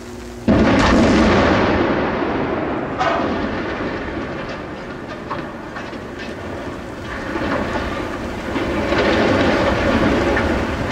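Explosive demolition charges go off at the base of a 451-foot reinforced concrete chimney: a sudden loud blast about half a second in, a second sharp report about 2.5 s later, then a long rumble that fades and swells again near the end as the chimney topples.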